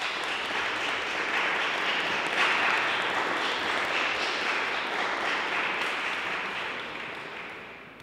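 Audience applauding in a large, echoing hall, swelling in at the start and dying away near the end.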